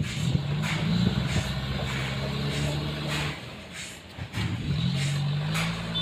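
Forklift engine working under load while carrying a large log: it runs steadily, eases off a little past halfway, then revs back up and holds.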